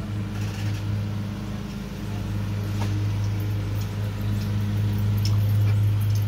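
A steady low machine hum, with a few faint clicks over it.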